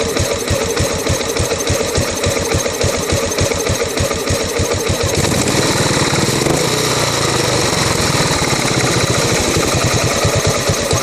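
2008 Buell Blast's single-cylinder engine running with a rough idle, a steady train of firing pulses. About five seconds in, the engine speed rises for a few seconds, then drops back to idle.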